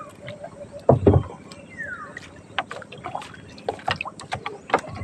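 Fishing net being hauled by hand over the side of a wooden outrigger boat, with scattered clicks and knocks against the hull and one heavy thump about a second in.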